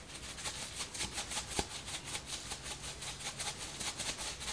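Himalayan pink salt shaken from a shaker bottle over chopped vegetables: a quick, steady rattle of salt grains, several shakes a second.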